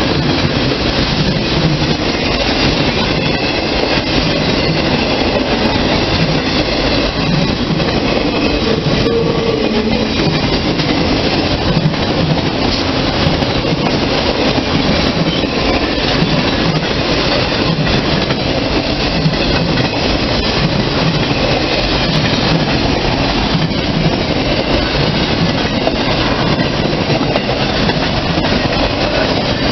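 Freight train of autorack cars rolling past close by: a steady, loud rumble and rattle of steel wheels on rail.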